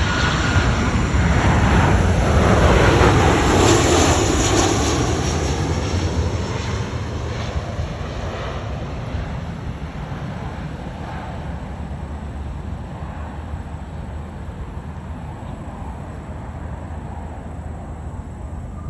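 Jet engine noise of an American Airlines Boeing 737 landing. It is loudest a few seconds in, then slowly fades away.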